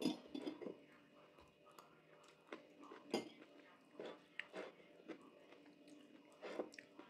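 Quiet mealtime sounds: a fork scraping and tapping on a plate now and then, with chewing in between.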